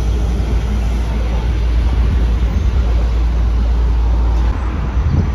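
Steady road traffic noise from a busy multi-lane highway, cars and trucks streaming past, with a deep low rumble that eases off near the end.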